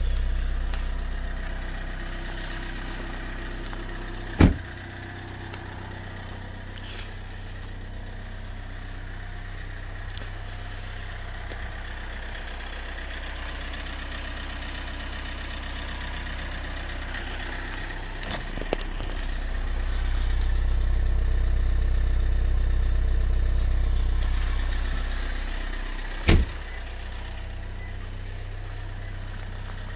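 Toyota RAV4's 2.2 D4D four-cylinder turbodiesel idling steadily at −8 °C shortly after a cold start, its low rumble louder at first, quieter for a long stretch, then swelling again. Two sharp knocks stand out, about four seconds in and again near the end.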